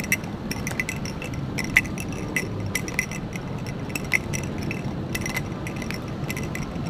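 Light metallic clinking and jangling, a few irregular clicks each second, in step with someone walking, over the steady hum of a large, echoing terminal hall.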